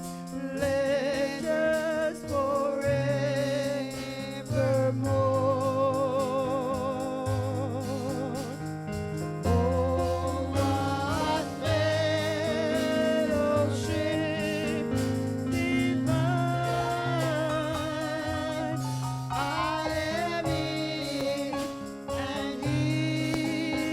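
Gospel worship singing: a voice holds long notes with wide vibrato over sustained low accompaniment notes that change every second or two.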